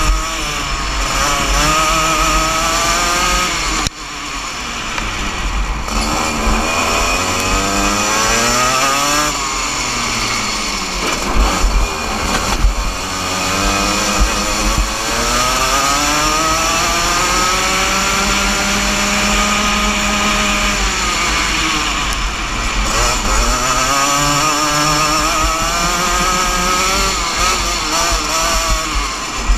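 125cc two-stroke Junior Max kart engine racing at full throttle, its pitch repeatedly climbing on acceleration and dropping off when lifting and braking for corners.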